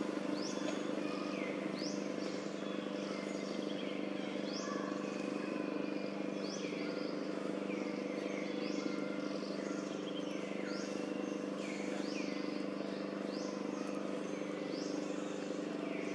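Outdoor ambience: a bird chirping repeatedly, short high rising calls about once a second, over a steady low hum.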